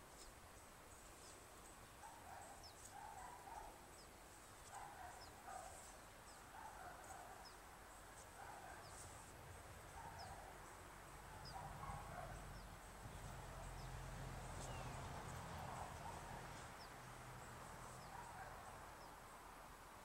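Faint open-field ambience with small birds chirping in short, high, falling notes again and again. A low steady hum rises about twelve seconds in and fades near the end.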